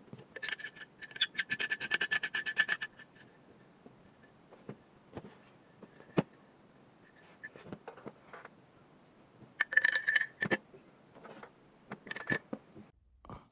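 Small metal airsoft rifle parts being handled and fitted together. A couple of seconds of rapid scraping clicks with a ringing tone near the start, a shorter run about ten seconds in, and scattered single clicks and knocks between.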